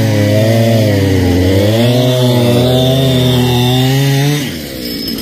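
Chainsaw running hard as it cuts up a fallen tree, its engine note wavering up and down under load. About four seconds in, the note drops and the saw eases off.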